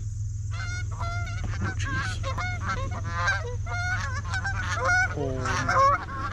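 Canada geese honking, many short overlapping honks in quick succession, thicker and lower near the end, over a steady low hum.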